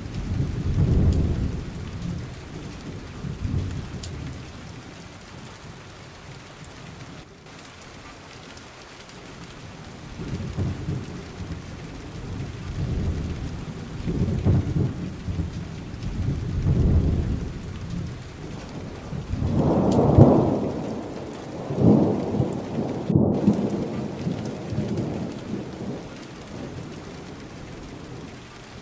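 Steady rain with rolling thunder, the rumbles rising and fading again and again; the loudest peal comes about two-thirds of the way through.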